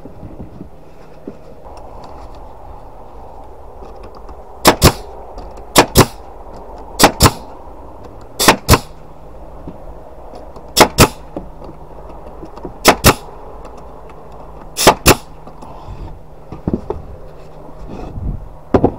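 Pneumatic nail gun firing nails into wooden boards: seven shots, each a sharp double crack, about one to two seconds apart. A low steady hum runs underneath.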